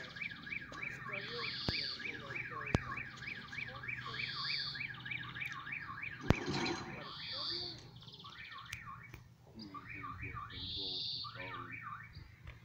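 Level crossing warning signal sounding: a fast, repeating electronic ringing at about four pulses a second while the crossing barrier is down. A single loud knock comes about six seconds in.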